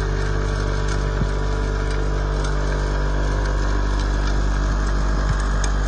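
Salt truck running with its Buyers SaltDogg 3-yard electric hopper spreader working, the spinner throwing rock salt onto pavement: a steady mechanical hum with scattered light ticks.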